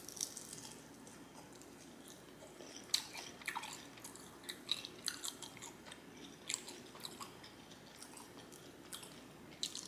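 A person chewing a fried chicken wing, with short clicks and crackles of biting and mouth noise at irregular intervals.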